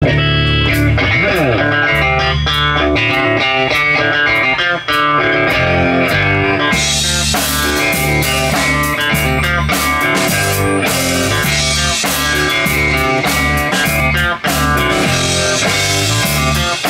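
Live rock band playing an instrumental passage: electric guitar lead over electric bass and drum kit. There is a sliding guitar note about a second in, and the cymbals come in fuller about seven seconds in.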